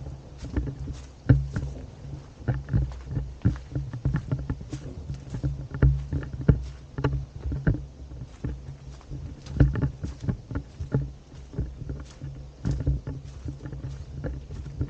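Irregular knocks and rustles, several a second, over a low rumble: footsteps and handling noise on a handheld camera's microphone while walking.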